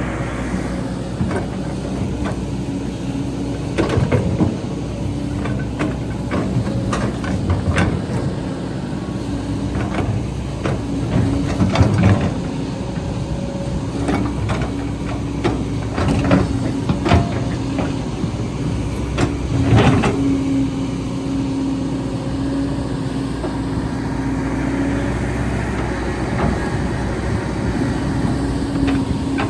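Excavator's diesel engine running steadily, with a tone that swells and fades and repeated clanks and knocks, several in clusters, from the machine at work.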